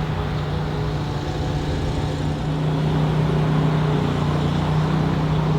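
A motor vehicle engine running steadily, a low hum that holds one pitch and grows slightly louder partway through.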